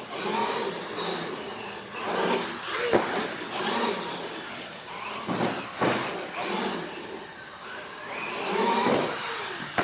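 Radio-controlled monster truck's motor whining, its pitch repeatedly rising and falling as the truck speeds up and slows down, with a few sharp knocks around the middle.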